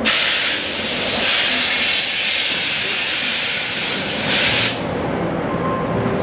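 Steam hissing loudly from the C11 tank locomotive as it vents steam low at its side. The hiss starts sharply, eases for a moment near a second in, and cuts off suddenly near the end.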